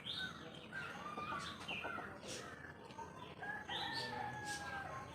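Chickens clucking and calling, with one longer drawn-out call near the end.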